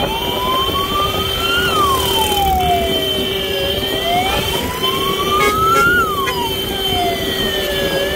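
Wail siren on a motorcycle sidecar ambulance, sliding slowly up and then down in pitch, about two full rises and falls, over a steady tone and the noise of motorcycles and road traffic.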